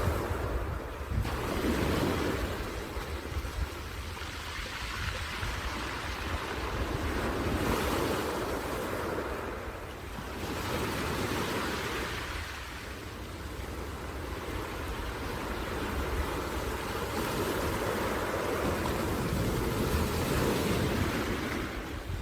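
Sea waves washing onto the shore: a steady surf hiss that swells and falls back every few seconds as each wave breaks and recedes.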